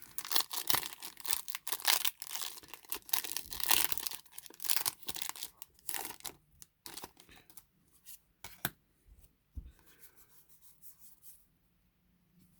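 Trading cards being gathered into a pile and a foil booster pack torn open with crinkling for the first several seconds. Then come scattered light clicks and taps of cards being handled, dying away near the end.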